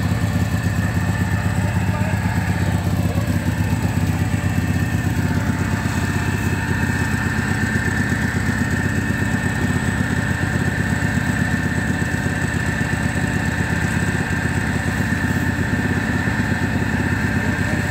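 Engine running steadily at constant speed, with a steady high whine that grows stronger about six seconds in.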